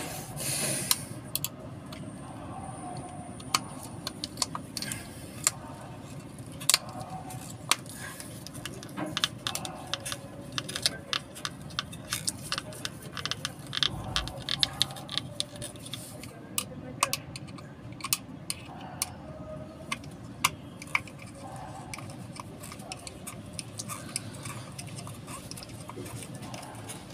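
Irregular small clicks and taps of a screwdriver on the terminal screws of a plastic 3-pin plug while the wires are screwed in, with light rattling from handling the plug.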